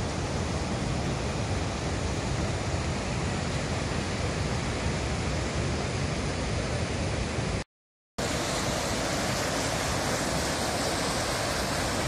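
Athirapalli waterfall and the river rapids above it: a steady rush of white water. About eight seconds in there is a brief cut to silence, after which the water sounds brighter and closer.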